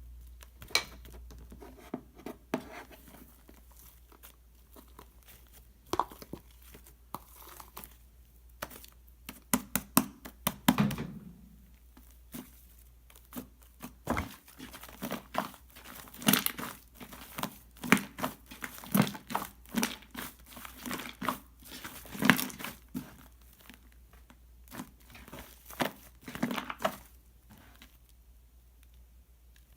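Shaving foam being squished and pressed by hand, giving irregular sticky crackles and pops. These come sparsely at first and grow busier and louder about halfway through.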